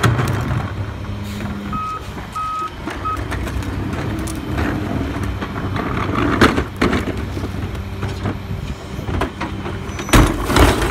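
Rear-loading garbage truck's engine running steadily while plastic wheeled carts are tipped by hand into the hopper, knocking against its edge, loudest about ten seconds in. Three short high beeps come about two to three seconds in.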